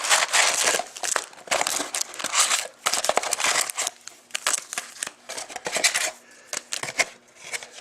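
Plastic shrink-wrap being torn and crinkled off a sealed box of trading cards, dense crackling for the first few seconds, then thinning to scattered rustles and clicks as the box comes open.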